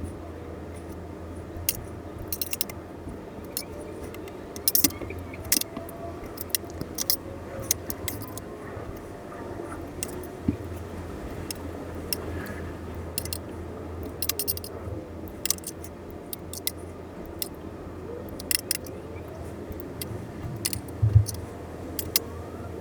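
Small metal parts and tools of a Casio analog wristwatch clicking and clinking irregularly as it is taken apart, over a steady low hum.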